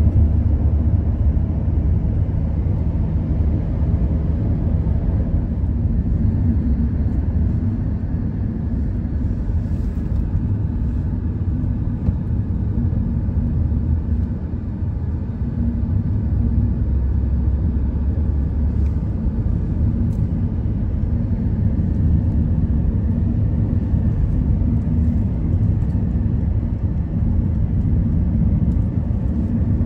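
Steady low road and engine rumble of a car driving at highway speed, heard from inside the cabin; it eases briefly about halfway through.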